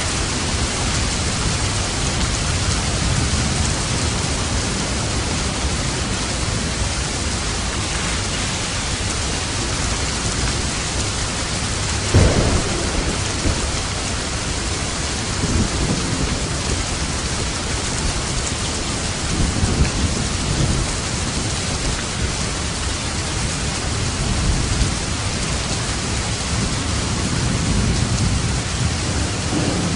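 Steady rain with thunder: a sudden loud rumble about twelve seconds in, then several softer rumbles every few seconds.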